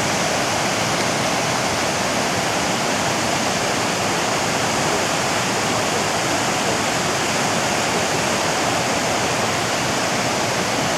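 Waterfall on a small river: water pouring and splashing in a steady, unbroken rush.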